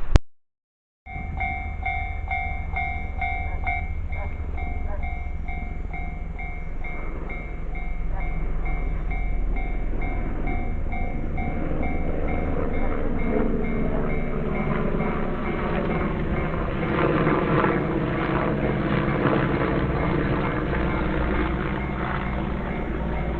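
Japanese railway level-crossing warning bell ringing in rapid repeating pulses. About ten seconds in, a train passes over the crossing with a loud rumble of wheels on rail that covers the bell.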